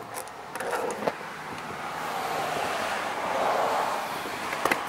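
A passing road vehicle: its engine and tyre noise swells to a peak about three and a half seconds in and then eases off. A few small clicks of handling come in the first second.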